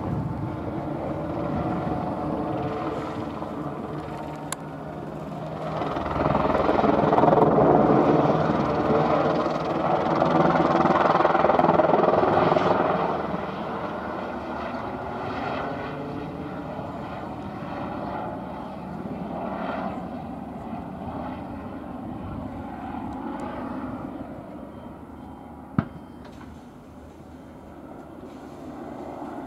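Airbus EC120B helicopter's turbine and rotors during an aerobatic display. The sound is steady and swells loud for several seconds about a quarter of the way in, then fades back as the helicopter draws away. There is a single sharp click near the end.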